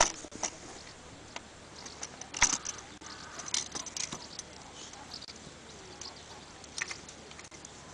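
Scattered clicks, knocks and clinks of a folding kayak's frame parts being fitted into its fabric hull by hand, the sharpest right at the start and about two and a half seconds in.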